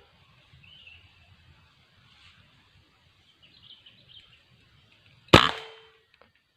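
A single sharp air rifle shot about five seconds in, with a short ringing tail. Faint high chirps come before it.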